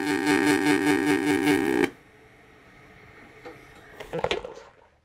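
MIG welding arc buzzing steadily with a regular pulsing, cutting off abruptly about two seconds in as the weld stops. A few soft clicks and rustles follow near the end.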